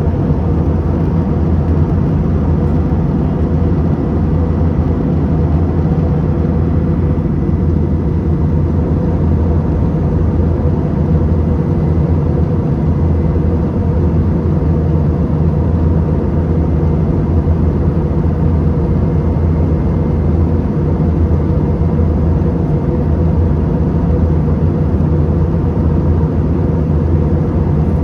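Steady drone of an airliner in flight, heard from inside the passenger cabin: engine and airflow noise with a strong low hum and a few faint steady tones.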